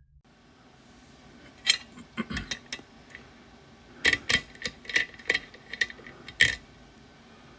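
A Ruko Garant lock and metal picking tools being handled: about a dozen sharp clicks and clacks in irregular clusters, the loudest in a run of strikes in the second half.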